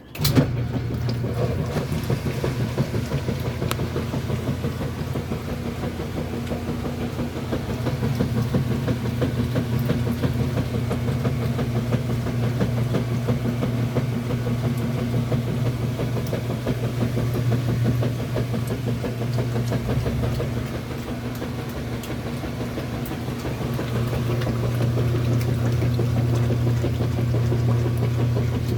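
Top-loading washing machine running with its agitator going: a steady motor hum with a strong low tone that comes on suddenly at the start.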